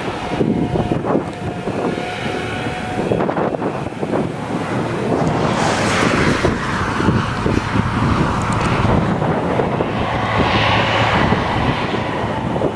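Claas Jaguar 970 forage harvester running under load, chopping whole-crop cereal and blowing it through its spout into a trailer: a steady machine drone. A broad rushing noise swells up about six seconds in and again around ten to eleven seconds.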